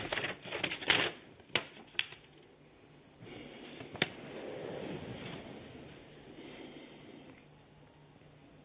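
Sheets of paper rustling and crackling as they are handled, loudest in the first second, followed by three single sharp paper snaps.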